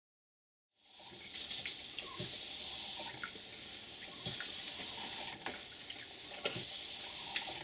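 Miniature vertical steam pump running, giving a steady hiss and rush of water with occasional sharp clicks from its valve gear. The sound comes in about a second in.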